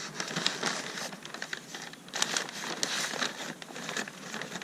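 Crinkle-paper packing fill being rustled and crumpled by hand as it is pulled from a shipping box: a dense, irregular crackling, busiest from about two seconds in.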